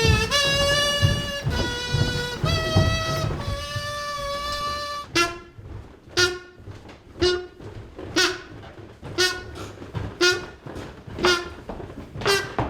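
A whistle blown as a summoning signal: a run of held notes stepping up and down in pitch for about five seconds, then short sharp toots about once a second.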